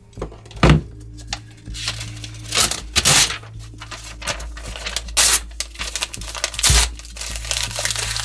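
Paper rustling and crackling as the pages of a spiral-bound notebook are flipped and handled, with several sharp swishes over a low steady hum.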